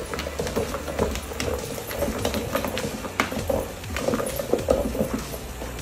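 A dog's claws clicking and scraping irregularly on a hard surface as it paws.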